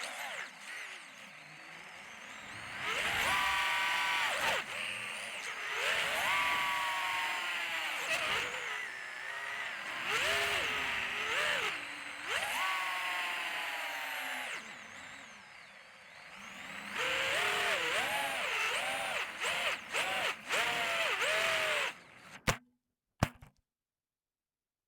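Electric motors of an FPV quadcopter whining in flight, their pitch surging up and down with the throttle, with quieter dips between bursts. It cuts off abruptly near the end, followed by two short clicks.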